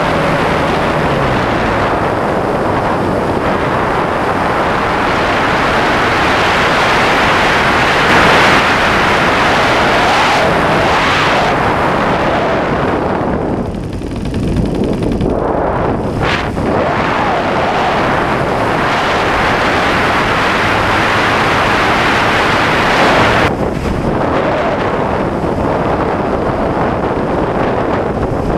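Loud rush of airflow over a wingtip-mounted camera's microphone, mixed with the running of the RC plane's supercharged YS 115FZ-S four-stroke glow engine. The noise swells and fades as the plane manoeuvres, with a brief drop about 14 seconds in.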